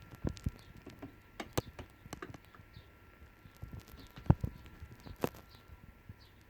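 Stylus crackle on a Garrard SP 25 Mk III turntable: irregular clicks and pops over a faint hiss, with one louder pop past the middle, as the needle runs in the record's groove before the music starts. It is heard through headphones.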